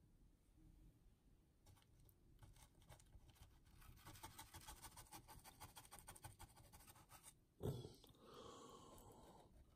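Faint brushing of thick mud texture paste with a flat paint brush on a diorama base: a rapid run of soft scratchy strokes and dabs. A brief louder noise comes near the end.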